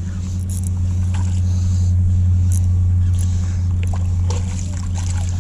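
Steady, loud low drone of a boat engine, one unchanging deep tone, with faint scattered clicks over it.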